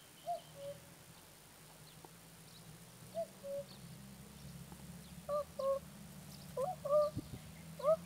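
Common cuckoo calling its two-note 'cuck-oo', the second note lower than the first, five times with gaps of one to three seconds, the last calls louder. A faint low steady hum lies underneath.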